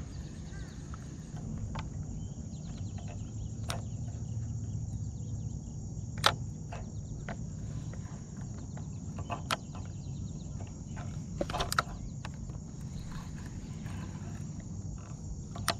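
Steady high-pitched insect chorus over a low outdoor rumble, with a handful of sharp clicks scattered through, the loudest about six seconds in.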